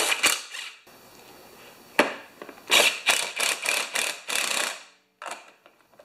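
Hand ratchet clicking in short runs of strokes as it tightens the lawnmower's engine-shroud bolts through a long extension, with a pause before a longer run of ratcheting in the middle.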